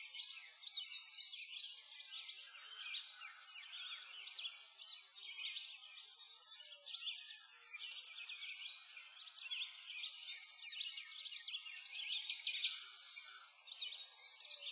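A chorus of songbirds chirping and trilling continuously, with many short overlapping calls.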